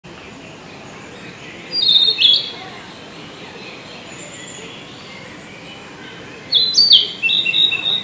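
Male narcissus flycatcher singing: two short phrases of clear notes, one about two seconds in and a longer one from about six and a half seconds.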